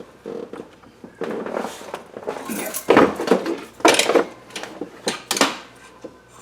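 Metal tools and parts clattering and clanking as they are handled and set down, with a few louder clanks about halfway through.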